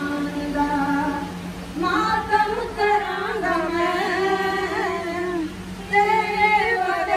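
Women singing a melody in long, held phrases, with short breaths between lines about a second in and again about five and a half seconds in, over a steady low hum.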